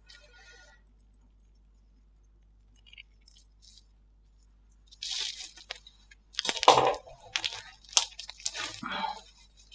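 Slime being worked by hand, making a dense run of sticky pops and crackles that starts about halfway through and lasts around four seconds, after a quiet stretch with a few faint ticks.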